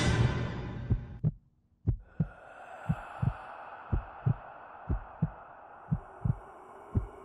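Scary film music fading out, then a heartbeat sound effect: paired low thumps, lub-dub, about once a second over a faint, steady eerie drone.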